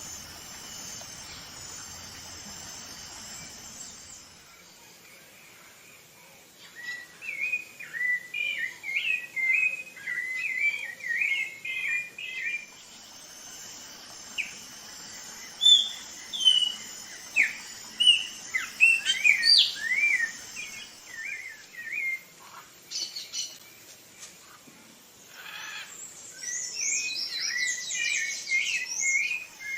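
Rufous-bellied thrush singing a long series of short fluting phrases, starting about a quarter of the way in, with a lull about two-thirds through before the song resumes. Crickets or other insects buzz steadily in the first few seconds.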